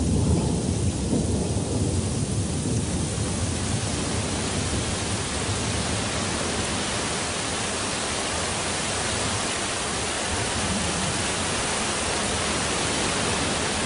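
Thunder rumbling over the first couple of seconds while the hiss of torrential rain builds, then a steady downpour.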